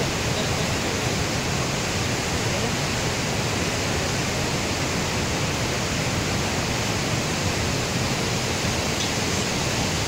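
Steady rushing of the Narmada River's white water pouring through the narrow gorge at Dhuandhar Falls, an even, unbroken noise.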